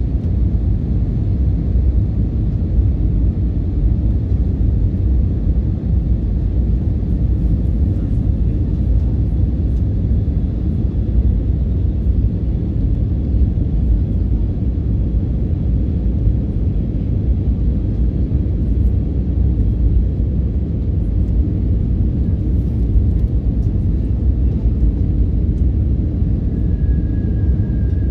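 Steady low rumble of cabin noise inside an Airbus A321 on final approach: its jet engines and the airflow over the fuselage. A faint high steady tone comes in near the end.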